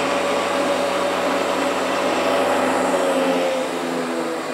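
Multico TH3 thickness planer running idle with no timber fed in: a steady electric motor and cutter-block whir.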